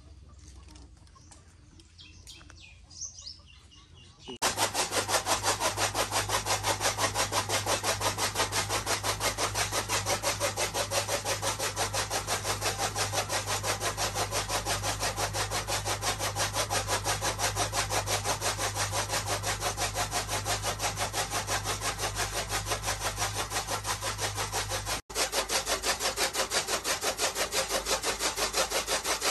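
Rhythmic back-and-forth scraping strokes, about two a second, starting suddenly about four seconds in over a steady low hum, with a brief break near the end.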